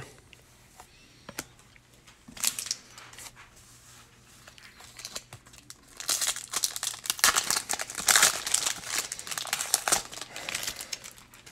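Foil wrapper of a baseball-card pack crinkling as the pack is torn open and handled. A short burst of crinkling comes about two seconds in, and the crinkling is heavier and continuous from about six seconds in until near the end.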